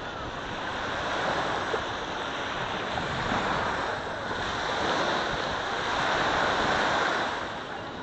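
Small waves washing up onto a sandy shore, the surf swelling and easing in slow rises and falls, loudest a little past the middle.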